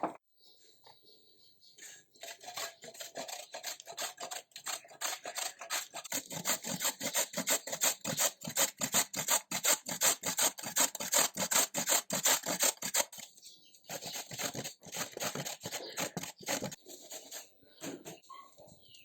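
Cassava root being grated by hand: a long run of rapid, even strokes, a short break about two-thirds of the way through, then more strokes.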